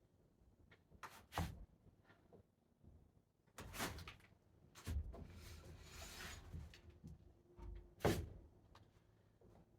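Hauling on a rope-and-pulley hoist to lift a heavy timber: a handful of separate knocks and clunks a second or two apart, with a longer scraping pull in the middle.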